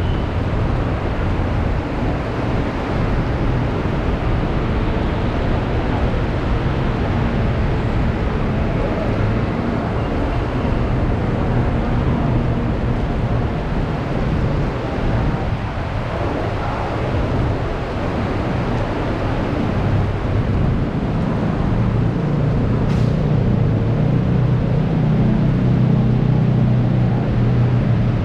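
Steady noise of heavy rain mixed with a low vehicle engine hum, the hum growing louder in the last few seconds; one brief click about two-thirds of the way through.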